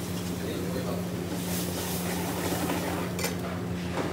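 Commercial kitchen background: a steady low hum with a faint hiss, and a few clinks of metal spoons and ladles against pans, the clearest about three seconds in.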